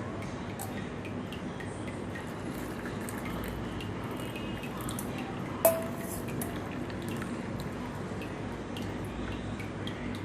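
Tea being poured through a strainer into cups, a steady run and drip of liquid, with one sharp clink of metal against a cup a little past halfway.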